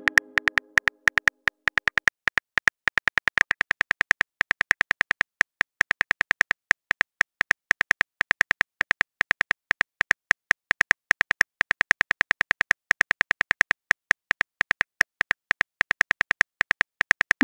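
Phone keyboard clicks from a texting-story app: a rapid, slightly uneven run of short, identical ticks, about six a second, as a message is typed out letter by letter. The first second holds the fading tail of a chime.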